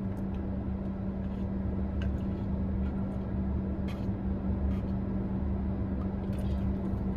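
Steady low rumble and hum of a moving car heard from inside the cabin, with a few faint clicks about two and four seconds in.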